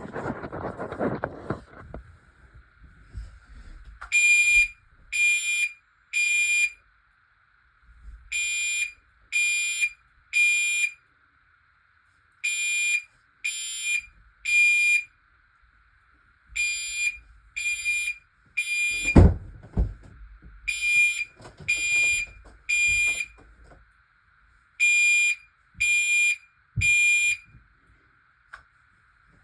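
Fire alarm horn sounding in the three-pulse evacuation pattern: three buzzy blasts of about half a second each, repeating roughly every four seconds over a faint steady tone. A thump is heard about two-thirds of the way through.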